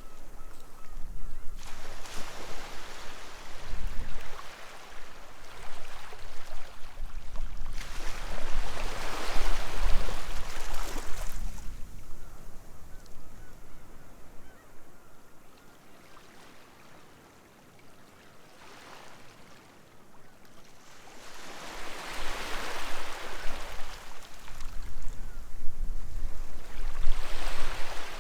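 Sea waves surging onto the beach in two long swells, one building to a peak about ten seconds in and another near the end, with a quieter lull between. Gulls call over the surf.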